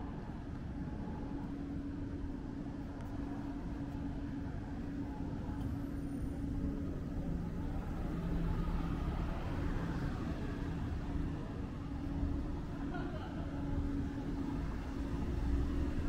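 City street traffic: a motor vehicle's engine running with a steady hum, over road noise that grows slightly louder near the end.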